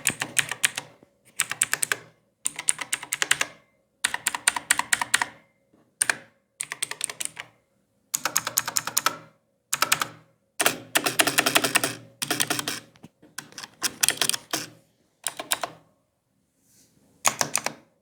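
Typing sound test on a Quantum QHM9800 mechanical keyboard with clicky blue switches: rapid bursts of sharp key clicks, stopping and starting every second or so, with short pauses between bursts.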